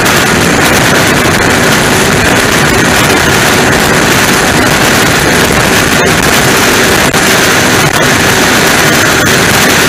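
Steady, loud powerboat engine noise mixed with wind on the microphone.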